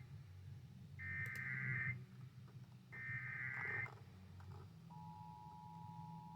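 Emergency Alert System broadcast on weather radio: two bursts of SAME digital header data, each about a second long and a second apart, then about five seconds in a steady two-note alert tone starts and holds, over a low background hum.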